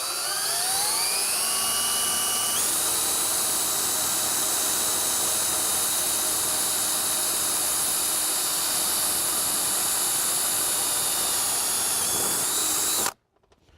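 Power drill spinning up with a rising whine, then running steadily as it bores a hole in the garden tractor's body, and stopping suddenly near the end.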